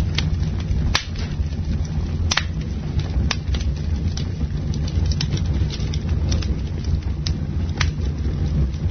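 Campfire burning: wood crackling and popping at irregular intervals over a steady low rumble.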